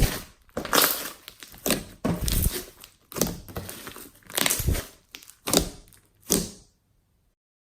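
Fluffy slime being squished and kneaded by hand: a run of about nine short squishy bursts, roughly one a second, that stop shortly before the end.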